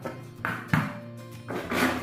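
Background music with a few short plastic knocks as the lid of a blender jug is pressed on and settled, the sharpest about three-quarters of a second in.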